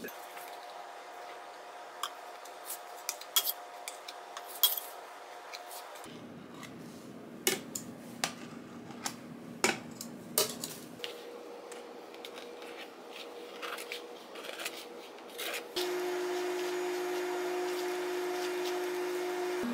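Scattered clinks and taps of baking utensils and clear plastic cake boxes against a stainless-steel worktable, over a faint steady hum that becomes louder near the end.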